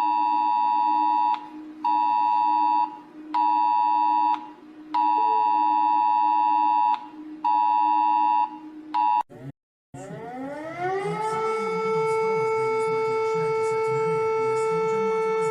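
Emergency alert attention tone: a steady dual tone sounded in pulses of one to two seconds with short gaps, over a lower continuous hum. It stops briefly about nine seconds in, and then a siren winds up in pitch and holds a steady wail.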